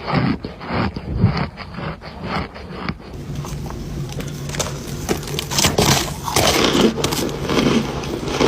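Crunchy chewing of compressed cornstarch chunks, a crunch about every half second. About three seconds in it cuts to another recording with a steady low hum and scattered scraping and sliding sounds.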